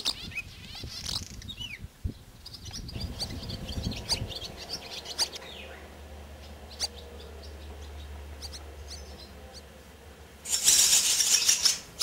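Barn swallow twittering: scattered short high chirps and a few falling notes. About ten and a half seconds in, barn swallow nestlings break into a loud burst of shrill begging calls lasting over a second.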